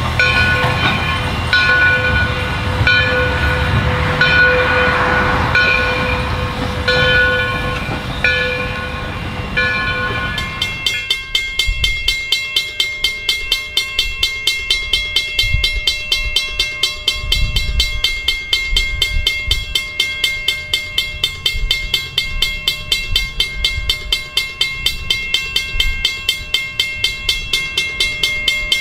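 A steam train running with a bell ringing in a slow, steady rhythm over a low rumble. About ten seconds in, a grade-crossing bell takes over, clanging rapidly and evenly at about three strikes a second as the train moves off, with occasional low rumbles from the train.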